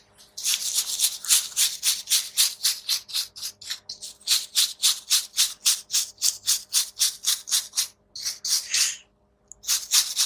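Stiff bristle brush scrubbing the solder side of a circuit board wet with thinner, in quick back-and-forth strokes about four a second. The scrubbing stops briefly twice near the end.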